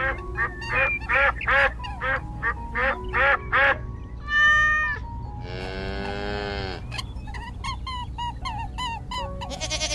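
A duck quacking repeatedly, about eight quacks in the first four seconds, followed a little past halfway by a longer buzzy animal call and then a run of short chirps near the end.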